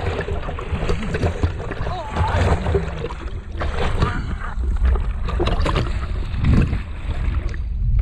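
Seawater splashing and sloshing around a handheld action camera at the water's surface as a man swims, with a steady low rumble of water on the microphone and short irregular splashes throughout.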